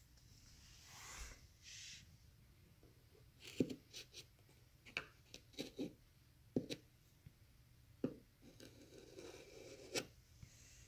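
Flathead screwdriver scraping wet wood filler out of the gap between shiplap boards: faint, irregular scrapes and clicks, with a longer scratchy stretch near the end.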